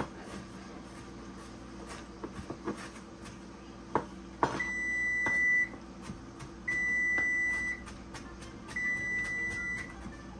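Electronic appliance beeper sounding a repeated alert: one steady high beep about a second long every two seconds, starting about four and a half seconds in, over a low steady hum and a few clicks.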